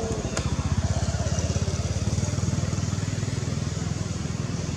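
An engine running steadily with an even low throb, a little louder about a second in.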